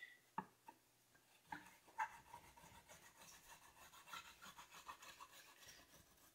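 Faint rubbing of a wax candle on the corners of a wooden drawer rail, waxing it so the drawer slides. A few light knocks come first, then quick short strokes at about three a second.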